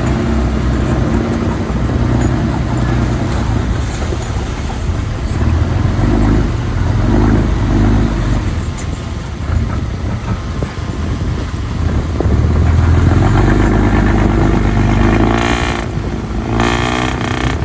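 Heavy diesel engine of earth-moving machinery running steadily under load, growing louder for a few seconds about two-thirds of the way through. Near the end there are two short, higher-pitched sounds over the engine.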